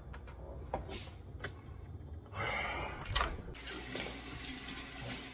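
A few light clicks and knocks, then water running steadily from about two and a half seconds in, with one sharper knock a little after three seconds.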